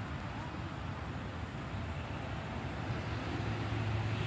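Low, steady engine hum of a vehicle over outdoor background noise, growing louder about three seconds in.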